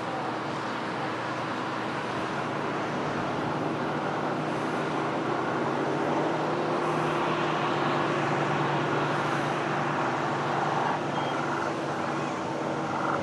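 Steady engine noise with an even low hum, growing a little louder about halfway through.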